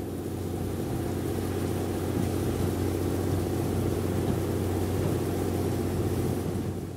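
A boat's engine running steadily, a low drone with a rough hiss over it, cutting off abruptly at the end.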